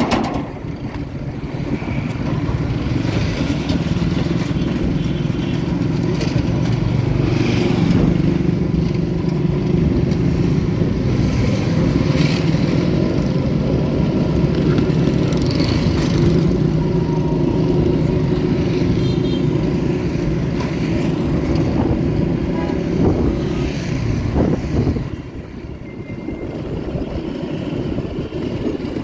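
Steady low rumble of engines and street traffic, with a few brief swells as vehicles pass and a drop in level near the end.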